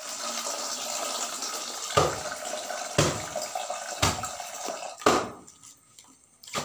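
Crunching of spicy fried pappadam chips being bitten and chewed close up, a sharp crunch about once a second, four in all, over a steady rush of running water that fades out near the end.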